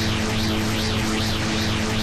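Dragon Ball Z Genkidama (Spirit Bomb) energy sound effect, looped: a steady electronic hum with a hissing whoosh that rises and falls about twice a second.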